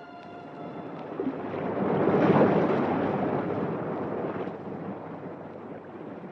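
Sound effect of a rough sea: one surge of waves swells to its loudest about two seconds in, then slowly dies away. A held music chord ends about a second in.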